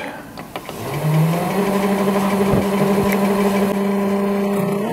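Mini lathe's motor spinning up after a few clicks, its whine rising in pitch, then running steadily; the pitch drops a little near the end.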